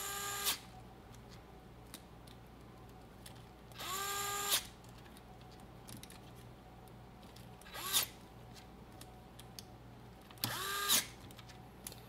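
Electric screwdriver driving the small screws into the base of a quadcopter brushless motor, in four short runs. Each run rises to a steady whine, and the third is the briefest.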